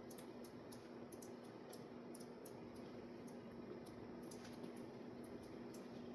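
Hunter Stratford ceiling fan running on high, nearly silent: a faint steady hum under a soft hiss of moving air, with faint irregular high ticks throughout.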